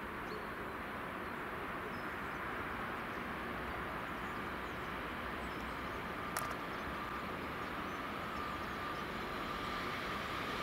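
Bombardier Talent 3 (class 8442) electric multiple unit approaching, a steady rush of running noise slowly growing louder. A thin, high steady whine comes in about halfway through and strengthens as the train nears, with a single click just before it.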